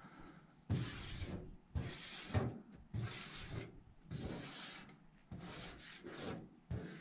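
A fingertip dragged across the pollen-dusted painted metal roof of a pickup truck, drawing in the dust: a series of short rubbing strokes, each under a second long.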